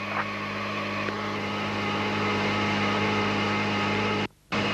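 Steady cockpit noise of a Tu-22 bomber: a constant hum and hiss with a low drone, which cuts out for a split second near the end.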